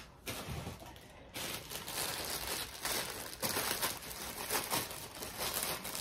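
Plastic bag crinkling and rustling as a package is handled and put into it, starting about a second in and going on unevenly.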